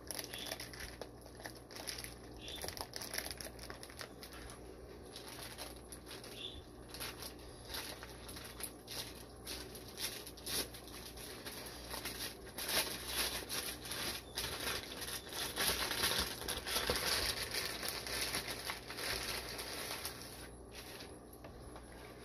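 Plastic fish-shipping bags crinkling and rustling as they are handled, growing louder and busier past the middle.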